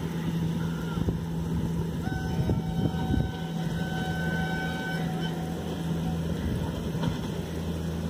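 Steady low rumble and wind on the microphone at a railway platform, with a faint, distant electric locomotive horn held as one steady tone from about two seconds in for roughly three seconds.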